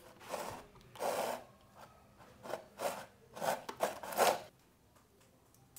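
A run of short scraping and rubbing noises, about seven in four seconds, as a baby monkey clambers over a plastic stool and a stuffed toy.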